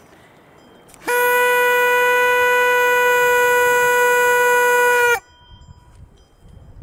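A small brass horn blown in one long, steady note held for about four seconds, ending with a slight dip in pitch as it cuts off.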